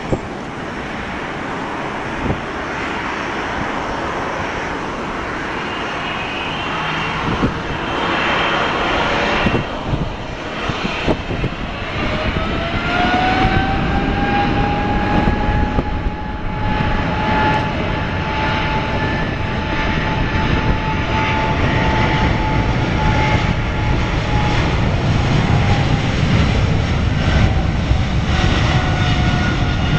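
Boeing 777-300ER's GE90-115B turbofans spooling up to takeoff power: a whine rises in pitch about a third of the way in, then holds as a steady high whine over a growing rumble while the jet accelerates down the runway toward rotation.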